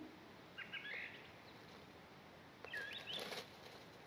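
Faint bird calls: a short group of high chirps about half a second in, and another near three seconds, over a quiet background hiss.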